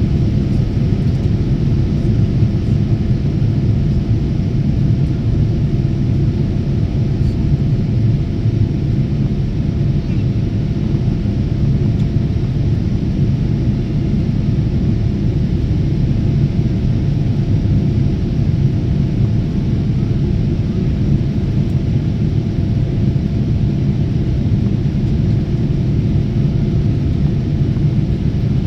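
Steady cabin noise of a jet airliner in flight: an even low rumble of engines and airflow, with a faint steady hum above it.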